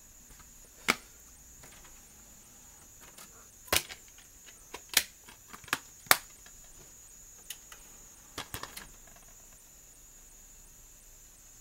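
Handling noise: about ten sharp clicks and taps of a plastic DVD case being picked up and held, the loudest a few seconds in, with a faint steady high-pitched whine underneath.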